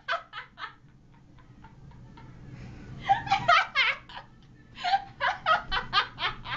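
People laughing in three bouts of quick, rhythmic bursts: one right at the start, one about three seconds in, and a longer one from about five seconds in.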